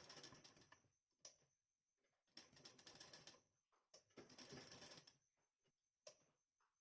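Faint sewing machine stitching in three short runs of about a second each, sewing a border along a blouse neckline.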